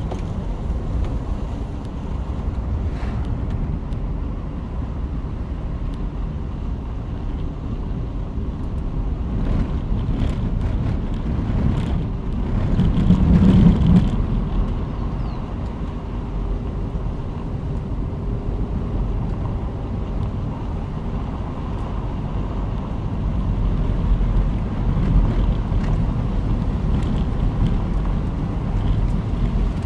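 A car driving: a steady low rumble of road, engine and wind noise, which swells briefly near the middle.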